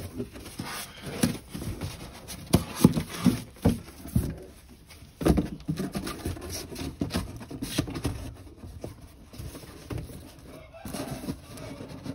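Domestic pigeons in a wooden coop, cooing low, with scattered knocks and rustling throughout.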